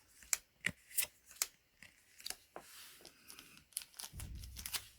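Yu-Gi-Oh trading cards being flicked through by hand: a string of sharp clicks and snaps of card edges, with a short low bump about four seconds in.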